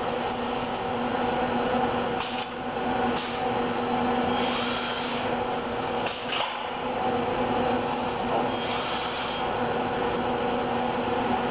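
Motoman SDA10 dual-arm industrial robot running as its arms move: a steady mechanical whir and hum, with a few faint clicks.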